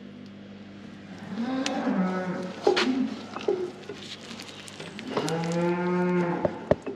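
Cattle mooing twice: one long call about a second and a half in, another about five seconds in. A few sharp knocks fall between and after the calls.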